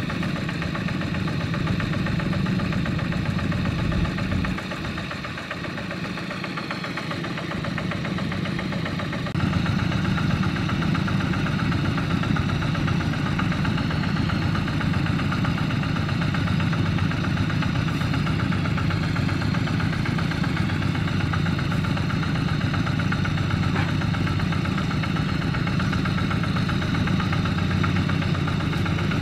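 Two-wheel walking tractor's single-cylinder diesel engine idling steadily. It turns quieter about four seconds in, then steps back up louder about nine seconds in and holds there.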